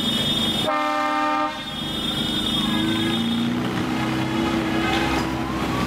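Vehicle horns sounding in long, overlapping blasts over the low running of motorcycle engines, with a brighter, higher-pitched horn cutting in for under a second about a second in.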